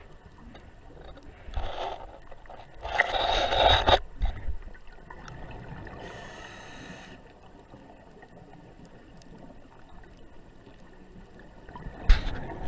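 Scuba diver's exhaled regulator bubbles underwater: two gurgling bursts in the first four seconds, the second longer and louder, a fainter hiss around six seconds in, and another short burst near the end.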